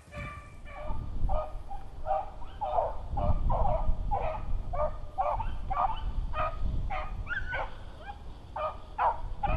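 A pack of beagles baying while running a rabbit's track. Several dogs call over one another in short, repeated bays, two or three a second.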